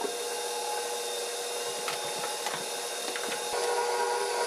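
KitchenAid Professional 600 bowl-lift stand mixer's 575-watt motor running on low speed, its flat beater turning flour into the wet bread-dough ingredients: a steady hum that grows a little louder about three and a half seconds in.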